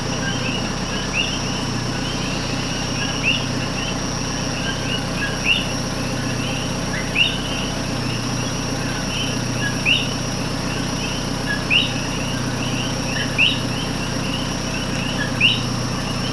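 Common coquí frogs calling at night: a louder rising 'co-quí' call about every two seconds over a dense chorus of fainter calls.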